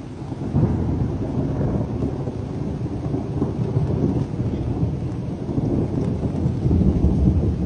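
Long roll of thunder that swells about half a second in and keeps rumbling, following a lightning strike a few seconds earlier.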